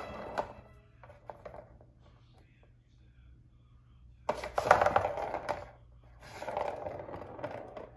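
A plastic ball rattling and clattering round the track of a circular cat scratcher toy as kittens bat it. There are a few light taps, then two spells of rattling, the first about four seconds in and the second about six seconds in.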